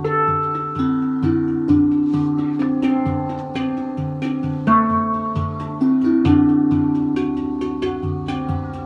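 Slow plucked-string instrumental music: a low bass note repeats about twice a second under a melody of ringing, sustained notes.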